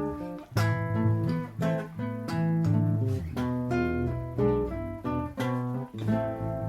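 Acoustic guitar playing an instrumental passage of picked notes and strummed chords, each note ringing and dying away, with no voice over it.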